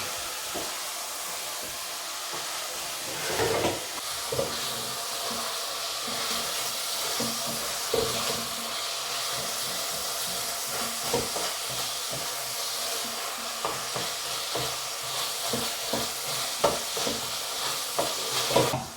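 Beef mince and onions sizzling as they brown in a frying pan, with a utensil stirring and scraping against the pan now and then. The sizzle drops away abruptly near the end.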